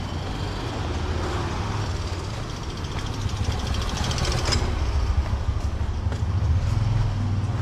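Street traffic: a steady low rumble of passing vehicles, with a brief rattle about four seconds in.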